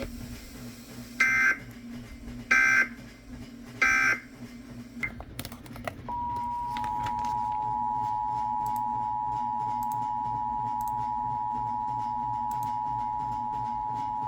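Emergency Alert System tones opening a new warning: three short data bursts of the SAME header about a second and a half apart, then about six seconds in the steady two-tone attention signal, held for about eight seconds, over a low hum.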